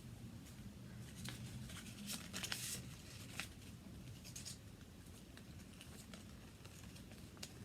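Scissors snipping open a plastic slime-kit packet, with the packet rustling and crinkling as it is handled: a scatter of short snips and rustles, the loudest cluster about two seconds in.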